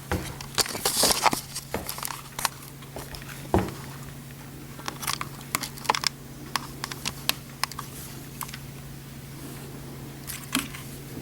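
Irregular small clicks and taps of deadbolt lock parts being handled and fitted into the door, busiest in the first second or so, with a firmer knock about three and a half seconds in, over a steady low hum.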